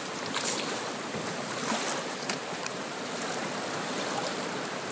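A fast river rushing steadily, running high and rising with snowmelt. A few faint ticks sound over it.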